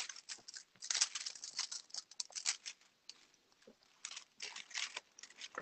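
Gloved hands handling a nail tip and nail tools: quiet, irregular scratching and rustling, in short clusters with brief pauses.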